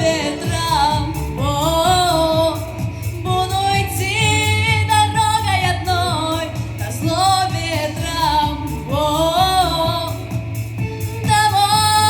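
A young girl's solo voice sings long, sustained phrases with vibrato over a pop backing track with a steady beat and bass, ending on a long held note near the end.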